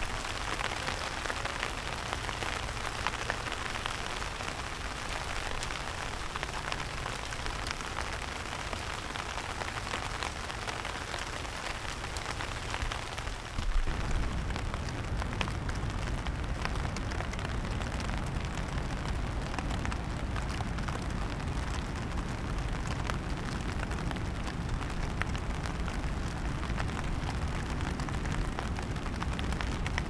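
Steady rain falling, an even hiss of drops. About fourteen seconds in the sound shifts, with a deeper low rumble added under the rain.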